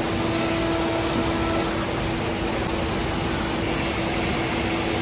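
Masterwood Project 365 five-axis CNC machining centre running as it machines a wooden beam. The spindle holds one steady whine over a constant broad machine noise.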